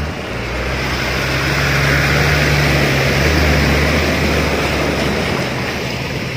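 Heard from inside the cabin: a car's engine drones steadily as it ploughs through deep floodwater, under a rushing wash of water against the body and wheels. The wash swells about two seconds in and eases again near the end.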